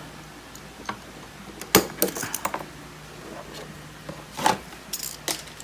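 A few sharp clicks and light knocks from hands working metal body clips out of an RC truggy's body posts. The loudest click comes a little under two seconds in, with a handful more scattered after it.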